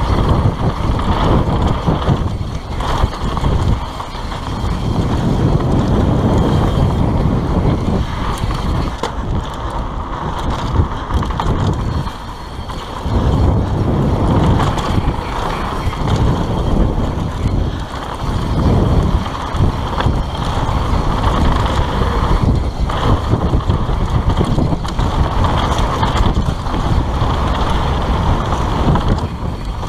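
Mountain bike descending a dirt trail at speed: wind buffeting the handlebar camera's microphone over the rumble of knobby tyres and the bike rattling on rough ground, loud and continuous with an uneven level.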